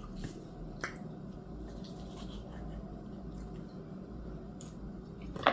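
A few faint wet clicks and smacks of someone eating pan-seared chicken, with a sharper click near the end, over a steady low hum.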